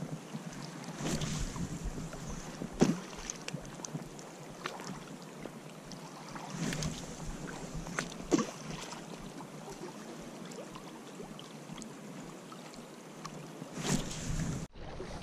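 Swift river current rushing steadily past a gravel bank, with wind buffeting the microphone. Several short knocks and rustles come through, the loudest about three seconds in and another cluster near the end.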